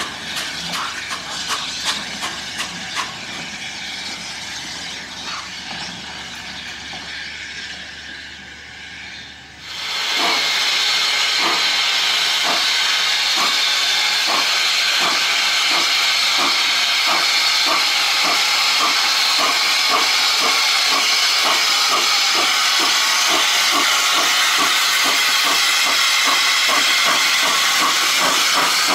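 Railway coaches rolling past with a regular clickety-clack of wheels over rail joints. About ten seconds in this gives way to a loud, steady hiss of steam from a Hunslet 0-6-0 saddle tank steam locomotive standing at a platform.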